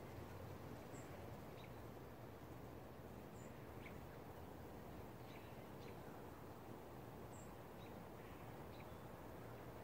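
Faint outdoor ambience: a steady low rush of background noise, with a handful of short, high bird chirps scattered through it.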